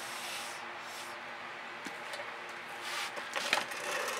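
A board carrying a wet painted canvas scraping and knocking as it is turned on the work table, in a short run of clicks and scrapes about three seconds in, over a steady background hiss.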